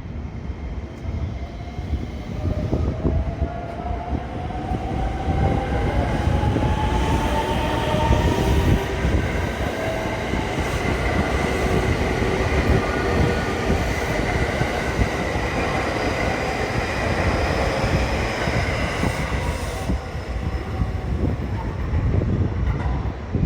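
Electric commuter train running alongside a station platform: a steady rumble of wheels on rail, with the traction motors' whine rising in pitch over the first several seconds and then holding steady.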